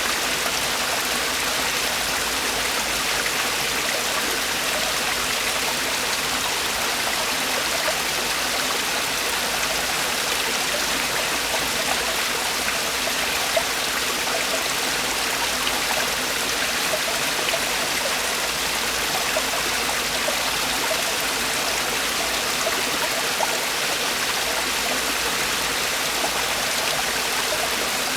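Mountain stream water tumbling over rocks in a small waterfall: a steady rushing splash with fine droplet spatter.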